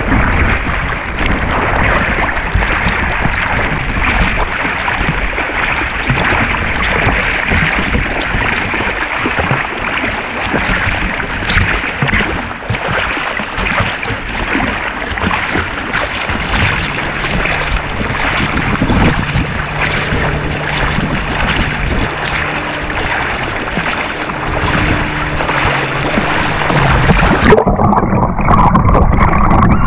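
Sea water splashing and sloshing around a waterproof action camera at the surface, with the rhythmic splashes of front-crawl swimming strokes. A faint steady low hum runs through the middle part. Near the end the camera goes underwater and the sound turns muffled and dull.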